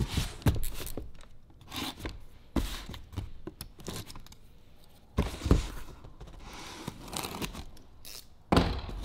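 Cardboard box being handled and its packing tape slit and torn open, with rasping tape and cardboard scrapes and a few knocks of the box on the table; a louder tearing rasp comes near the end.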